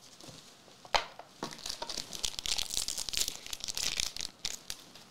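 Foil booster pack wrapper of the One Piece Card Game being torn open and crinkled. A couple of sharp clicks come about a second in, then a dense crinkling for a couple of seconds.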